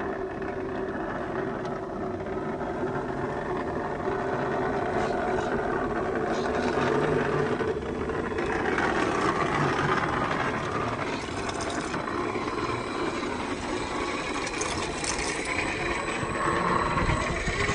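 Scale RC rock crawler trucks' electric motors and geared drivetrains whirring steadily as they crawl over rock.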